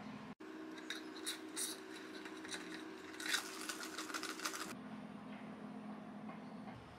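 A plastic straw pushed down through the lid of a plastic cold cup: a few light clicks, then a second and a half of scratchy plastic scraping that stops abruptly. Low room tone with a faint steady hum around it.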